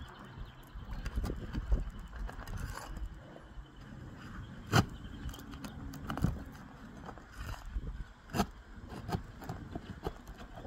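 Asphalt roof shingles being lifted by gloved hands, scraping and crackling as the tabs are pried up. A few sharp knocks cut through, the loudest a little under halfway through.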